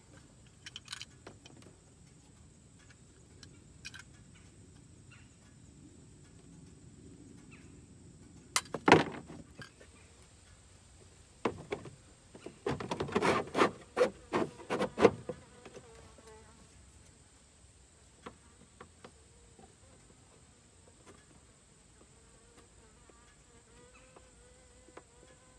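Hard plastic knocks and rattles as a plastic glove box is handled and pressed into the plastic dash of a Honda Pioneer 500: one sharp knock about nine seconds in, then a cluster of knocks over a few seconds. In the second half a faint insect buzz with a wavering pitch comes and goes.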